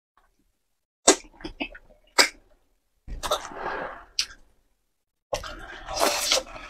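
Wide potato-starch noodles being slurped from a spicy broth: a few short, sharp sucking slurps, then a longer slurp, then a long run of slurping and wet mouth sounds from about five seconds in.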